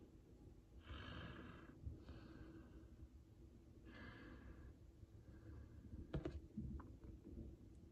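Near silence with faint breathing: a few quiet breaths spread through, and a couple of small clicks about six seconds in.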